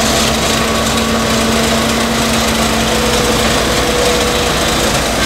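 Case 1107EX single-drum road roller's diesel engine running steadily, with a constant hum and a deep low drone, as the roller works over loose gravel.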